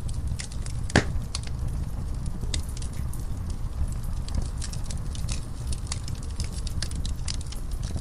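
Logs burning in a fireplace: a steady low rumble of flame under irregular crackles and pops, with one loud pop about a second in.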